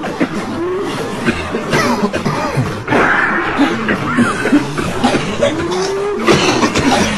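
Many people coughing and clearing their throats at once, the coughs overlapping densely throughout.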